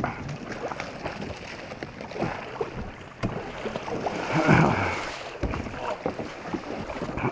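Kayak moving through the water: water sloshing and splashing about the hull with scattered short knocks, and a louder rush of water about four and a half seconds in.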